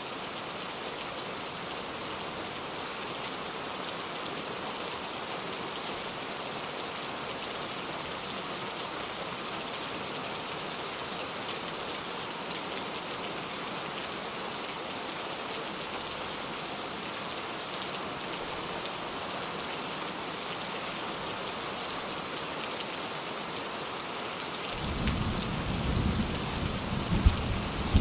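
Steady heavy rain falling. Near the end a low roll of thunder breaks in and swells, with one sharper crack at its loudest.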